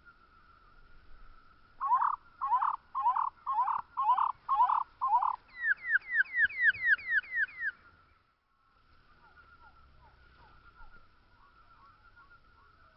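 Spotted towhee song played slowed down: seven drawn-out, evenly spaced introductory notes followed by a run of about eleven quick downslurred notes, then cut off abruptly. A few fainter short descending notes follow after a brief gap.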